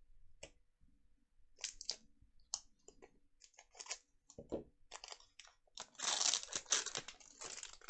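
Crinkling of a foil Pokémon booster-pack wrapper and handling of cards: scattered light crackles, then a louder, denser crinkling from about six seconds in.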